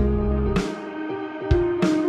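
Background music: sustained melodic notes over a steady drum beat.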